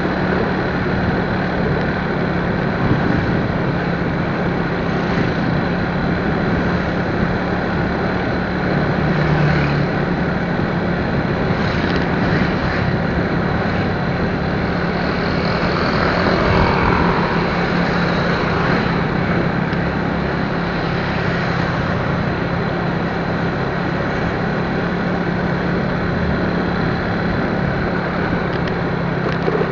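Steady engine and road noise of a moving vehicle, with a constant low hum throughout.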